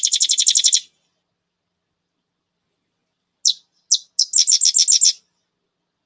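Sedge wren song: a rapid, machine-gun-like staccato trill of about ten notes a second that ends about a second in. Then, past the middle, two dry clicks lead into a second fast trill lasting about a second.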